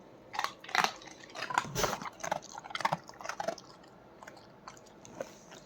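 Labrador crunching and chewing a crunchy roasted soya snack, a rapid irregular run of crunches over the first three and a half seconds, then a few faint clicks.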